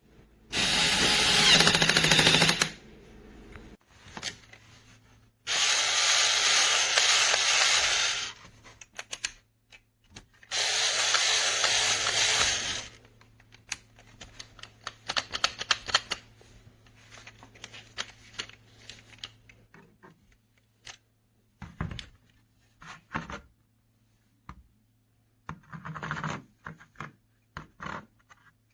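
Battery-powered toy drill from a take-apart construction toy running in three bursts of two to three seconds each, driving plastic bolts into the crane truck. After these come scattered clicks and knocks of plastic parts being handled.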